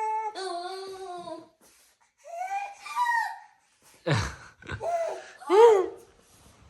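Infant fussing: a series of high-pitched cries and whimpers, the first held for about a second and a half, with shorter sliding wails later, the loudest near the end.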